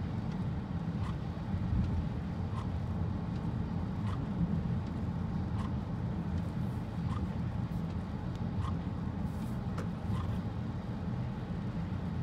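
Road noise inside the cabin of a 2018 Honda Accord Sport 1.5 driving on a rain-soaked road: a steady low rumble of tyres with the hiss of water under them. A faint tick repeats about every second and a half, in time with the windshield wipers.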